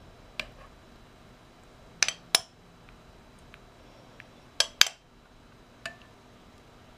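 Metal spoon clinking against a ceramic bowl and plate as scalded nectarines are scooped out of water: a handful of short, sharp clinks, with two quick pairs about two and nearly five seconds in.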